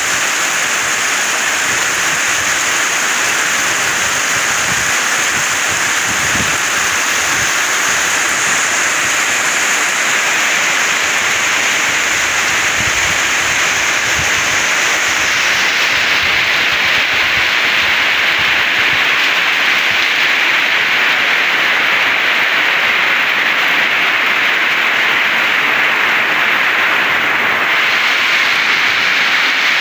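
Heavy rain falling in a downpour, a dense steady hiss, with water pouring off a roof edge.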